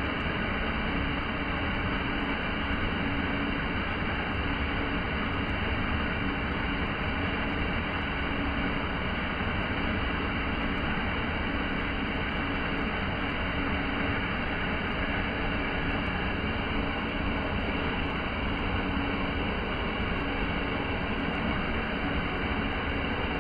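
Small multi-tiered waterfall pouring over rock ledges into a pool: a steady, unbroken rush of falling water.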